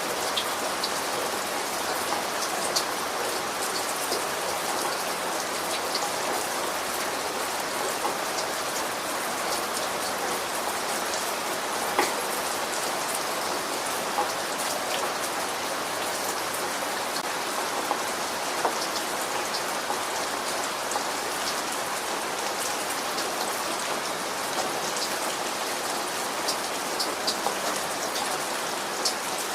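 Steady rainfall, an even hiss with many individual drops ticking and pattering on a hard surface, a few louder drop hits standing out here and there.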